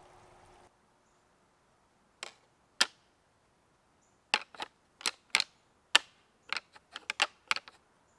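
A pair of deer antlers being rattled together: about a dozen sharp clacks in irregular clusters, starting about two seconds in and coming faster near the end. It is the rattling call hunters use to mimic two bucks sparring and draw in a buck during the rut.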